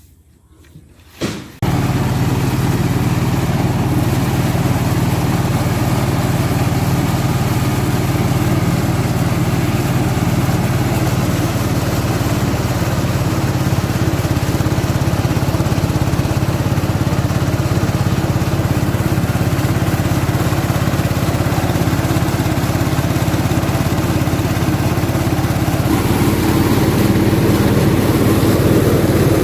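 Engine of farm machinery running steadily at a constant speed, with a low, even hum. It comes in suddenly about a second and a half in.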